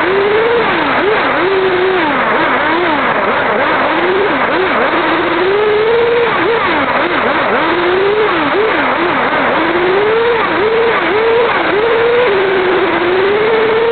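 Kyosho RC car's motor heard from on board, its pitch rising and falling over and over as the throttle is worked, over a steady rough rush of tyre and drivetrain noise.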